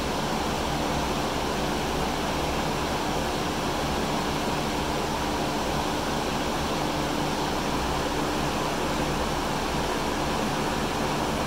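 Steady, even rushing noise with a faint steady hum underneath, unchanging throughout, with no distinct knocks or calls standing out.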